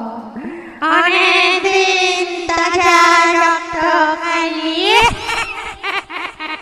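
Ghost sound effect: an eerie, wavering voice-like wail that starts about a second in and holds one pitch, then glides upward about five seconds in and breaks into short fragments and clicks.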